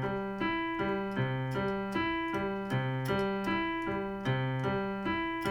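Piano playing a C major arpeggio spread over about an octave and a half, rising and falling back in an even, repeating pattern, each note ringing on.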